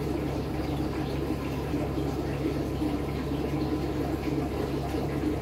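Steady machine hum with a rushing noise underneath, unchanging throughout.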